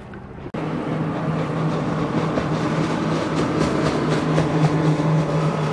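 Patrol boat's twin outboard motors running at high speed in a close pass, a steady engine drone over the hiss of water and spray off the hull. It cuts in suddenly about half a second in.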